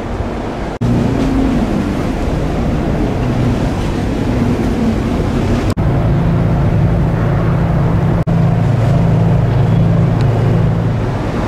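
Steady low hum of a cruise ship's machinery under a rush of wind on an open deck, the hum growing stronger from about halfway. The sound breaks off for an instant three times.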